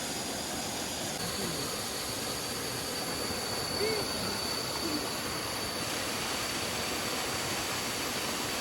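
Steady rushing of flowing river water, with a thin high steady whine that comes in about a second in and stops about six seconds in.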